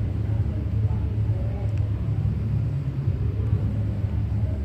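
A steady low rumble, with faint wavering sounds in the middle.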